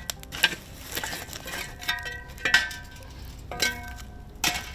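A metal shovel scraping and knocking in a fire pit as it pushes burning oak wood and coals under a steel grill grate: about six sharp clinks, several with a brief metallic ring.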